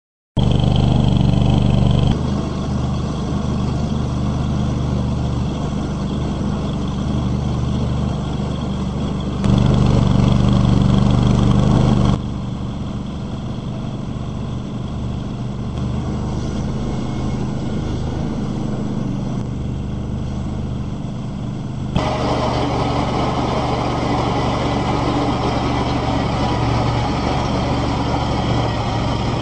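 Chain trencher's engine running steadily under load as its digging chain cuts a trench in sandy soil. The level and tone change abruptly several times.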